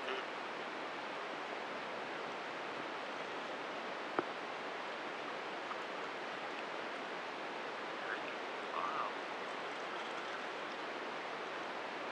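Steady, even rushing of water and air around a kayak as it glides through calm water, with a single sharp click about four seconds in.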